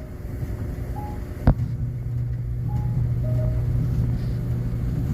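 Whirlpool gas clothes dryer running, its drum turning with a steady low hum and no belt squeak, its idler pulley freshly replaced. A single sharp click comes about one and a half seconds in, after which the hum grows louder and steadier.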